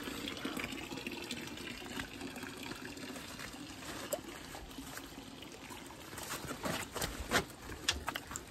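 Steady trickle of running water, with crisp crunching clicks near the end as a raw green guava is bitten and chewed.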